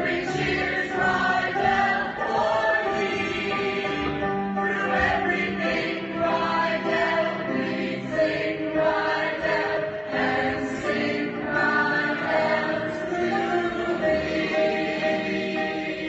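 A group of voices singing a school alma mater song together.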